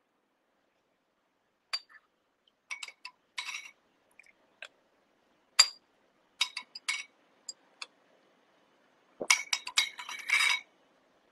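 A spoon clinking against a ceramic soup bowl while eating tomato soup: scattered single clinks, then a quick run of clinks and scrapes near the end.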